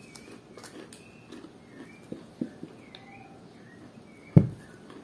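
Close-miked eating sounds: scattered soft clicks and smacks of chewing, with small birds chirping in the background. A single loud, low thump comes a little over four seconds in.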